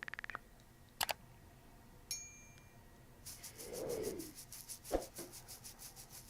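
Faint rubbing and scattered clicks. A quick run of clicks comes at the start, a soft rub swells and fades about halfway through, a single knock follows, and a fast even ticking runs through the last three seconds.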